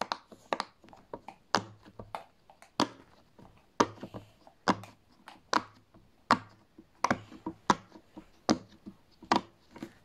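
Silicone pop-it fidget toy being pressed bubble by bubble: a long series of sharp pops, about one to two a second.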